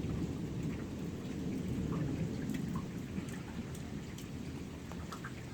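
Thunderstorm: steady rain with a low rumble of thunder that slowly eases, and scattered faint ticks of drops.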